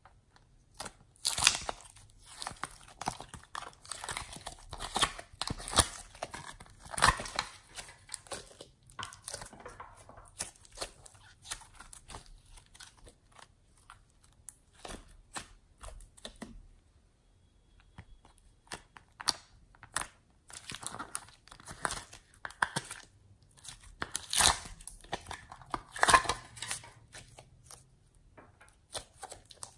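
Thick fluffy slime being squeezed, stretched and folded by hand, giving dense, irregular sticky crackles and pops. There is a short lull about two-thirds of the way through.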